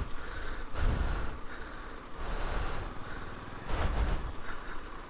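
Noise of a motorcycle ride over a rough dirt track: a steady low rumble of wind and road noise on the rider's microphone, surging louder about a second in and again near the end.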